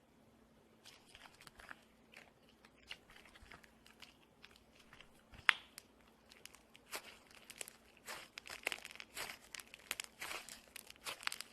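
Slime being squeezed and worked by hand, giving irregular crackling and popping clicks, with one sharp pop about five and a half seconds in and the crackling getting busier in the second half.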